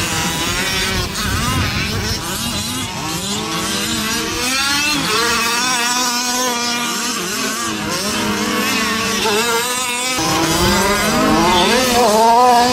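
Several radio-controlled race trucks' small engines running at once, their pitches rising and falling as they rev through a race.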